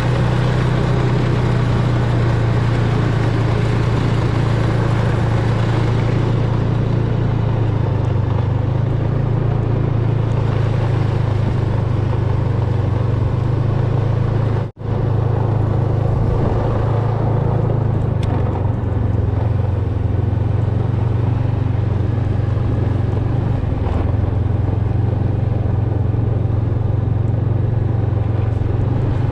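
Snowmobile engine running steadily at riding speed, a constant low drone, with a brief break in the sound about halfway through.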